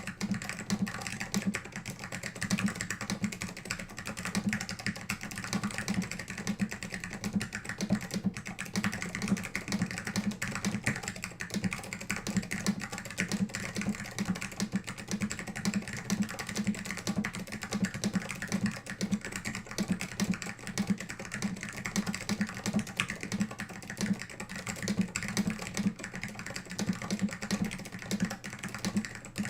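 Continuous typing on an Alps64 mechanical keyboard with SKCM Orange Alps switches, an acrylic plate and case, and AEK II PBT dye-sub keycaps, without the dust mat: a steady, dense run of key clacks.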